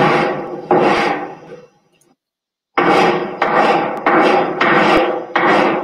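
Strokes of large chalk against a drywall, each a loud scraping knock that rings on in the room. Two strokes come, then a pause of about a second, then strokes follow about twice a second.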